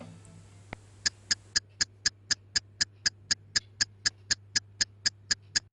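Clockwork timer ticking evenly, about four sharp ticks a second, counting down the bake. It starts after a single faint click and cuts off abruptly near the end.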